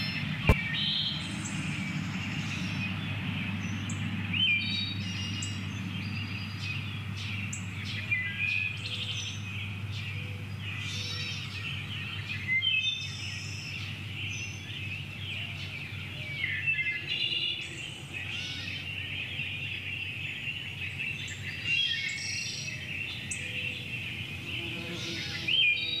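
Songbirds chirping and trilling in a steady chorus, with calls coming every second or two over a constant high background of birdsong. A low hum underlies the first half, and there is one sharp click just after the start.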